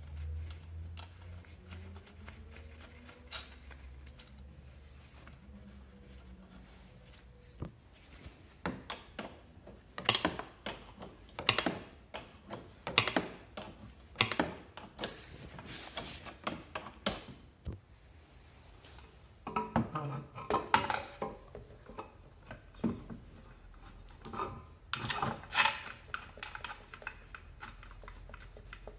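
Irregular clicks, knocks and clatter of hard plastic scooter bodywork and metal parts being handled and fitted by hand. The clatter starts several seconds in and comes in two busy spells, after a quiet start with only a low hum.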